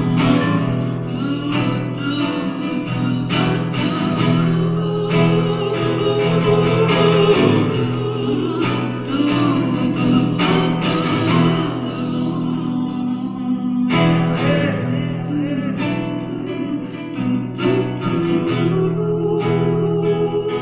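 Live acoustic music: guitars plucked and strummed in a steady rhythm under a wavering melody line. The music breaks off for a moment about two-thirds of the way through, then carries on.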